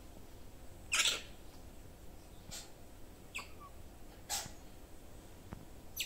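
Young otter giving short, high-pitched squeaks, five in all spaced about a second apart, the loudest about a second in.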